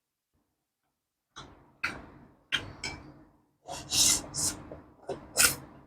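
Close-miked eating sounds of a person eating prawn soup with pork: a run of sharp, irregular mouth and chewing noises that starts about a second and a half in, with a longer noisy burst around four seconds in.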